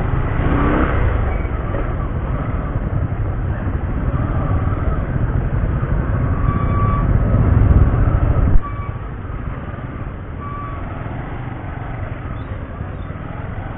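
Road noise of a Rouser 135 motorcycle moving slowly through heavy traffic of cars and motor tricycles, a dense low rumble. The rumble drops off suddenly about two-thirds of the way through, leaving a quieter steady traffic noise.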